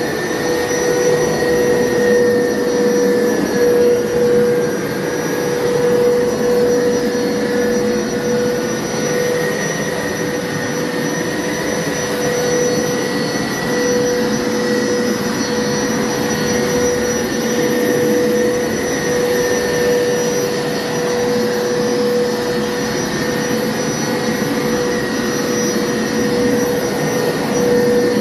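Hoover upright carpet cleaner running steadily, its motor giving a constant hum with a fainter high whine that wavers slightly in pitch.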